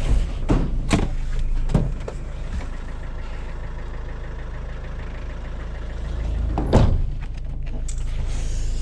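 Vehicle engine running with a steady low rumble, heard from inside the vehicle, with a few sharp knocks in the first two seconds and a louder knock about seven seconds in.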